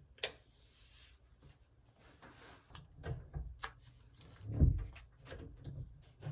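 Desk handling of diary-decorating materials: scattered light clicks and a brief papery rustle, with a few dull thumps of things being set down, the loudest a little past halfway.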